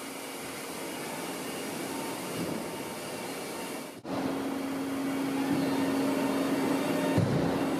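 Correa Axia 85 CNC milling and boring machine running under power with a steady whirr. About four seconds in the sound breaks off for an instant and comes back a little louder, now with a steady hum.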